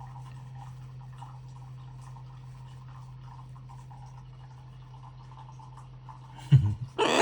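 Faint soft scratching and rustling, fingers working through a military macaw's feathers, over a steady low hum. Near the end comes a loud thump, then a short harsh burst of sound.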